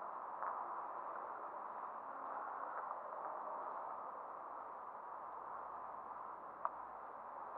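Steady hiss with a few faint clicks, and one sharp click near the end.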